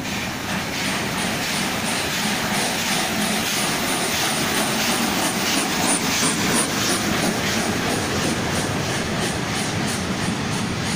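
FS Class 625 steam locomotive and its vintage coaches rolling slowly past, a steady rushing of the running train with a regular light ticking about three times a second. Loudest about six seconds in as the locomotive goes by.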